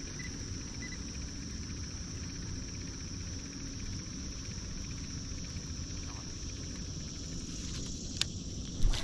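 Steady high-pitched insect chorus over a low rumble, with a sharp click about eight seconds in and a louder knock just before the end.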